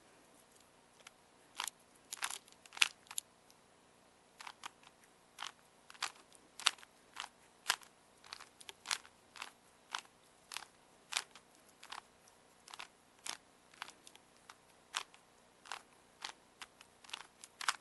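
Rubik's cube being twisted layer by layer as it is solved: a run of sharp plastic clicks, one or two a second, starting about a second and a half in. The cube is lubricated with olive oil and petroleum jelly.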